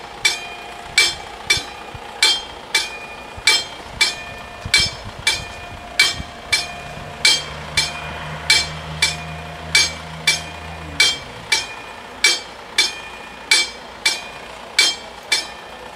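Level-crossing warning bells ringing in a steady run of sharp strikes, about two a second, the two bells slightly out of step: the crossing is active for an approaching train. A low vehicle engine hum runs under the bells for a few seconds in the middle.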